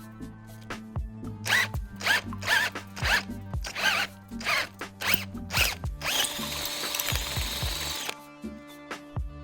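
Power drill boring out a hole in a motorcycle's metal upper triple clamp in short bursts, about two a second. About six seconds in, a hiss lasting about two seconds as the metal shards are blown off the work.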